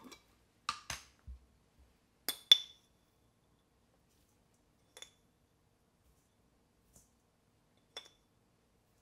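Kitchenware clinking: dishes and utensils knocked or set down one at a time. The loudest clinks come as two close pairs, about a second in and about two and a half seconds in, one with a short ring. Fainter single clinks follow a few seconds apart.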